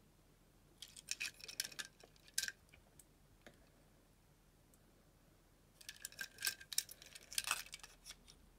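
Small die-cast toy cars clicking and rattling against each other and the fingers as they are handled and turned over, in two spells of quick clicks a few seconds apart.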